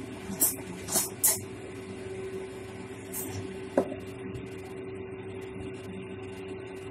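Cutlery handled on a plate: three short scrapes in the first second and a half, another near three seconds, and one sharp clink of metal on the plate a little before four seconds, over a steady low hum.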